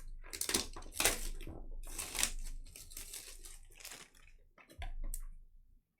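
Trading-card pack wrappers being torn open and crinkled by hand: a run of irregular rips and rustles, loudest in the first couple of seconds, with one last short crinkle near the end.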